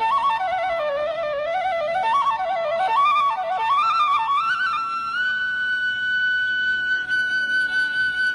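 Background music: a solo flute plays a melody that moves up and down in quick small steps, then holds one long steady note from about five seconds in.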